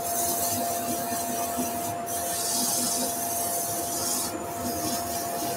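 Abrasive paper held by hand against a sycamore platter spinning on a wood lathe: a steady hiss of hand sanding, 240 grit. It lifts off briefly about two seconds in and for about a second near the end, over the lathe's steady hum.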